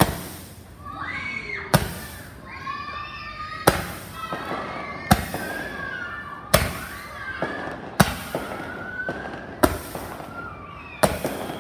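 Fireworks going off: about eight sharp bangs, roughly one every second and a half.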